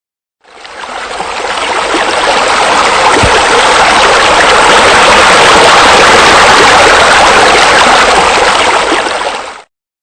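Steady rush of water splashing from a pool's waterfall and fountains, fading in about half a second in and cutting off suddenly just before the end.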